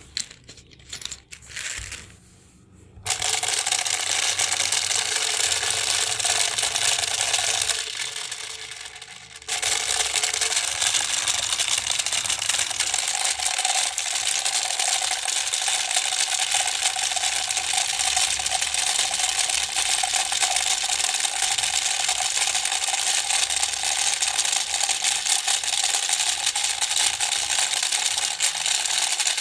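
Small electric toy overdriven on high voltage, its motor running with a loud, dense rattle and a steady whine. A few clicks come first, it starts about three seconds in, dies down near eight seconds and starts again a second and a half later.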